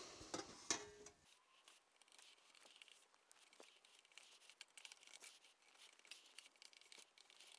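Near silence, with faint scattered clicks and scraping from a thin sheet-metal piece being bent by hand.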